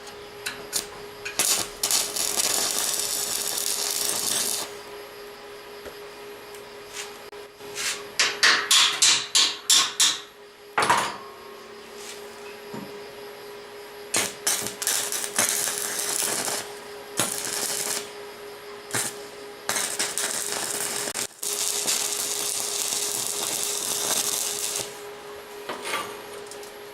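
Electric arc welding on steel, heard as stretches of dense crackling arc noise lasting a few seconds each. About eight seconds in comes a quick run of around ten hammer strikes on metal. A faint steady hum sits underneath.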